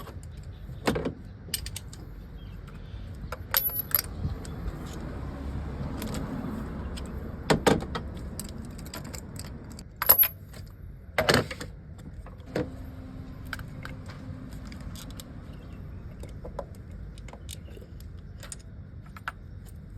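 Metal hand tools and engine parts clinking and clanking while the number 4 spark plug is taken out of the engine: scattered clicks, with a few louder clanks midway.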